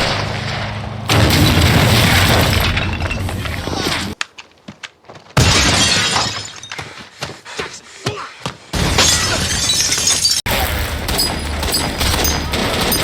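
War-film battle sound effects cut together from several scenes: gunfire and impacts with shattering and breaking, and music under parts of it. The sound changes abruptly several times, with a short near-silent gap about four seconds in, followed by a run of sharp cracks.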